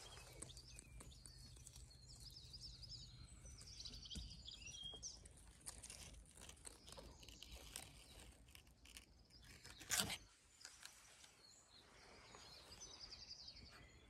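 Faint birdsong of small garden birds, with quick chirps and trills in the first few seconds and again near the end, over light rustling. A single sharp crunch about ten seconds in is the loudest sound.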